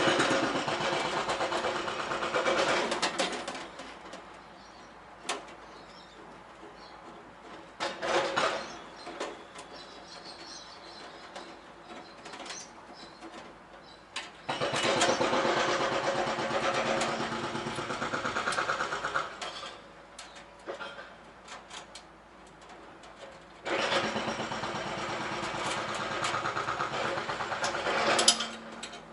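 A handheld power tool run in several bursts of a few seconds each, three long runs and one short one, with a rapid rattling texture.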